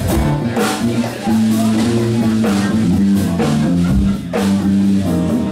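Funk band playing live: an electric bass line stands out in the low end over a drum kit, with keyboards and other instruments behind.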